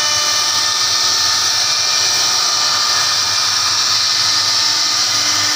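CNC router spindle running steadily as its bit carves a relief pattern into a wooden panel: a constant high-pitched whine over the hiss of the cut.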